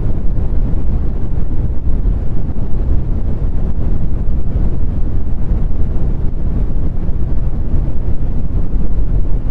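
Brown noise: a steady, loud, deep rumbling hiss with most of its weight in the low end, unchanging throughout.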